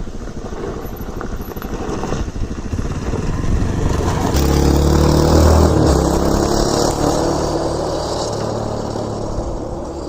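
Yamaha Ténéré 250 trail bike's single-cylinder four-stroke engine running under throttle, growing louder to a peak about halfway through, then easing off.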